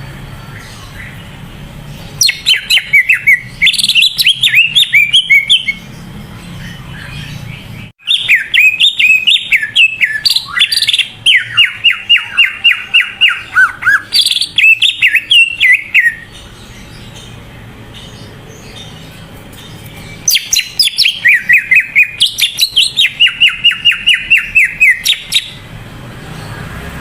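Cucak ijo (green leafbird) singing in full, 'gacor' voice: three loud bouts of rapid, chattering high notes, some sliding down in pitch. The first bout starts about two seconds in, the longest runs through the middle, and the last ends shortly before the end.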